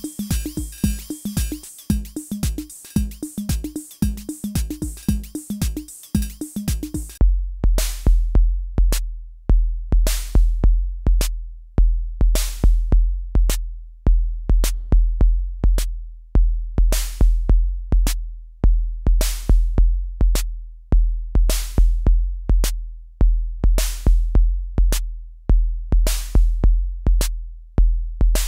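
Roland TR-6S drum machine playing a rhythm pattern while its sounds are edited live. About seven seconds in, the pattern changes abruptly to deep bass drum hits with long decays, set against sharp clicks and bright snare hits.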